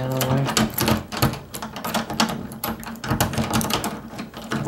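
A lock pick worked quickly in a door lock: rapid, irregular metallic clicking and rattling.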